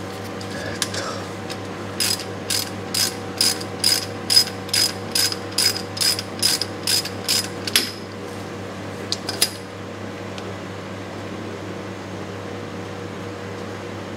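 Hand ratchet wrench clicking in quick back-and-forth strokes, about three a second for some six seconds, then two more clicks, as a bolt at the speedometer driven-gear housing on the transmission is undone.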